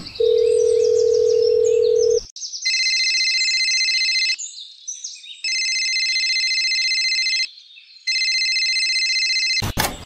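Telephone sound effect: a steady dial tone for about two seconds, then three high-pitched electronic ring trills of about two seconds each with short pauses between them. A brief loud click comes just before the end.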